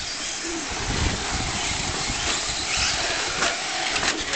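Electric Traxxas Slash 4x4 short-course RC trucks running on the track, their motors and tyres making a steady high hiss, with a few short knocks near the end.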